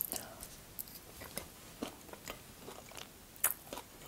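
Close-miked chewing of a mouthful of nut cake: a scatter of small crunches and wet mouth clicks, the loudest about three and a half seconds in.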